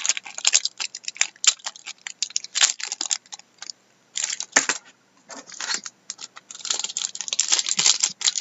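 A trading card pack's wrapper being torn open and crinkled: an uneven run of sharp crackles and rustles with brief pauses.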